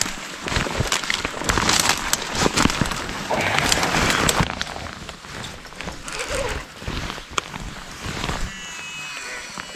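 Rustling and handling noise from clothing and dry reeds brushing close to a body-worn microphone, with scattered clicks and knocks. A denser stretch of rustling comes about three to four seconds in.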